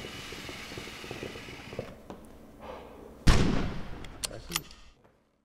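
A soft hiss, then about three seconds in a single sudden loud bang that dies away over about a second and a half, with a couple of sharp clicks near the end, before the sound cuts off.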